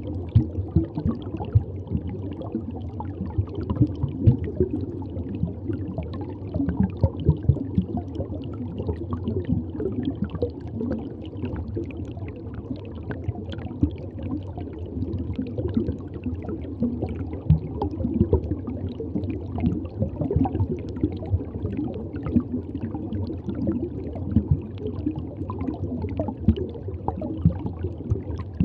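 Water gurgling and bubbling in a reef aquarium: a steady low rush with many small pops.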